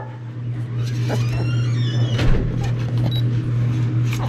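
A steady low hum runs throughout, with a couple of light knocks as a puppy shifts its feet on a plastic baby scale.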